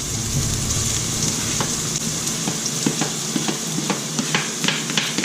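Onion and garlic sizzling as they sauté in hot oil in a pan. A utensil clicks and scrapes against the pan several times a second from about a second and a half in as they are stirred.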